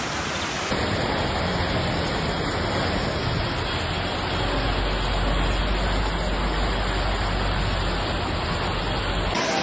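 Steady rushing noise of heavy storm water, with a sudden change in its character about a second in and a deep low rumble swelling from about four seconds in.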